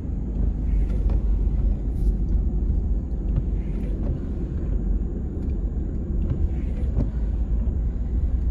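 Steady low rumble of road and engine noise heard inside a moving car's cabin, with a few faint ticks now and then.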